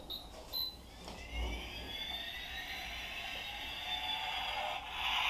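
A small motor whirring: a faint whine that rises in pitch about a second in and then holds steady, with a louder hiss coming in near the end.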